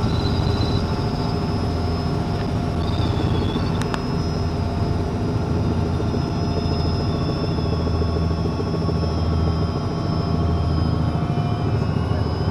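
Helicopter running steadily: a low drone with a thin high whine held over it.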